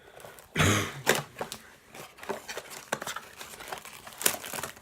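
Plastic wrapping on trading-card packaging crinkling and being torn open, a run of short irregular crackles with one loud rough burst about half a second in.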